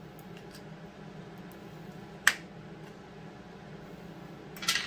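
Small hammer tapping a pick to chip the old crankshaft seal, which he calls ceramic, out of a Stihl MS 200T chainsaw's crankcase: one sharp metal tap about two seconds in and a quick cluster of taps near the end, with a few faint ticks early on.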